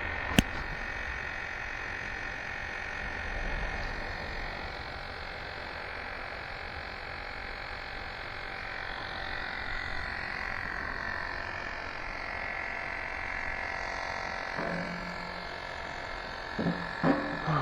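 Portable electric tire inflator running steadily with a continuous buzz while it pumps up an e-bike tire. A single sharp click comes about half a second in.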